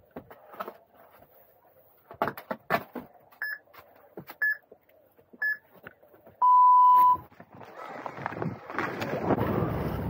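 Ski race start-gate countdown beeper: three short high beeps about a second apart, then one longer, lower and louder beep that signals the start. A few knocks and clicks come before the countdown. After the long beep, skis run over the snow with wind on the microphone, growing louder as the skier picks up speed.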